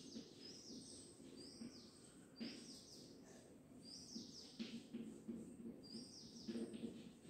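Chalk writing on a blackboard: a faint string of short, high-pitched squeaks and taps, coming in small clusters with pauses between them.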